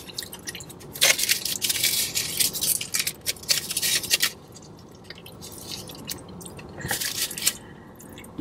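Aluminium foil crinkling around a burrito as it is peeled back and handled, a dense crackle for about three seconds, with chewing in the quieter stretch after and another short crinkle near the end.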